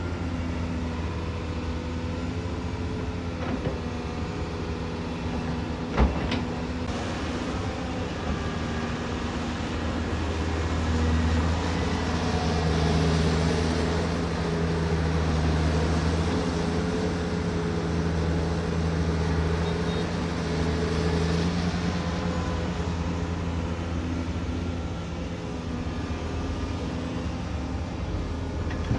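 Heavy construction machine's diesel engine running steadily, working harder for several seconds in the middle before settling back. A single sharp knock comes about six seconds in.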